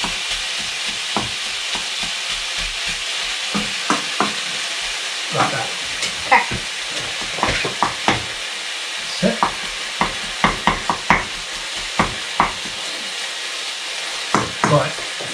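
Minced meat sizzling in a frying pan as it is browned, while a wooden spatula chops and breaks it up, knocking and scraping against the pan in irregular clicks.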